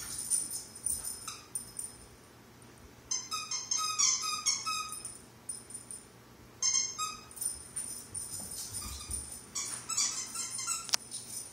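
Squeaky dog toy being bitten by a puppy: quick runs of high squeaks in several bursts, with short pauses between.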